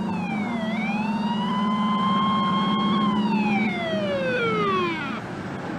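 Fire engine siren wailing. Its pitch dips and rises once, holds steady, then falls away over the last two seconds, over the steady drone of the truck's engine.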